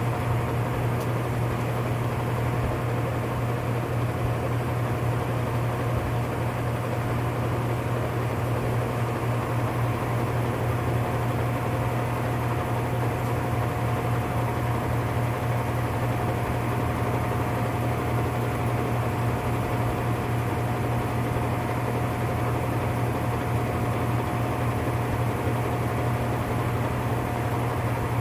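Whirlpool top-load washer running its high spin: a steady low drone with a constant thin whine above it. The technician traces the washer's grinding noise to a defective gear assembly.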